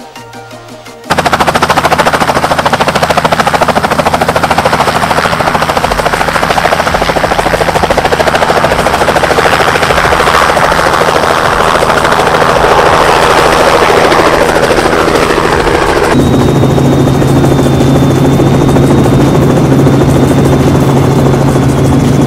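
Robinson R44 helicopter running close by with a loud, rapid chop from the rotor blades, starting suddenly about a second in. About sixteen seconds in it changes to a steadier hum with a thin high whine, as heard inside the cabin.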